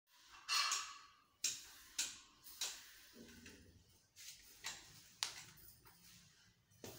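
A series of sharp taps, about eight spread unevenly over seven seconds, the loudest near the start.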